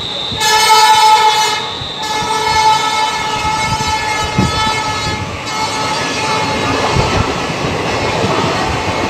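Indian Railways WAP-7 electric locomotive's horn sounding a short blast and then a longer one of about three and a half seconds, honking aggressively. After the horn fades, the rumble and clickety-clack of the train running past.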